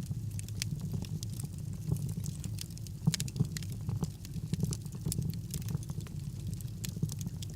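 Wood fire burning in a fireplace: a steady low rumble of flame with irregular crackles and pops, two louder pops about three seconds in.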